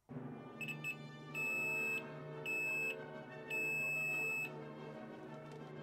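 Sanwa digital multimeter's continuity beeper sounding as its probes touch the leads of a power transistor: two short chirps, then three steady high-pitched beeps, the last about a second long. The beeping signals a short across the transistor, which is dead.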